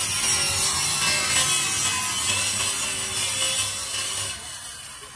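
Steady harsh abrasive noise of a workshop tool working material, holding level and then fading away over the last second or so.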